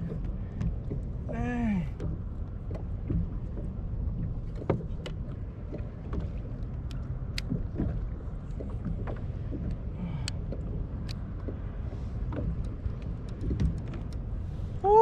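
Water lapping against a plastic fishing kayak's hull, with wind on the microphone and scattered small clicks and knocks of gear being handled. About a second and a half in there is a brief wordless vocal 'ooh' that rises and falls in pitch.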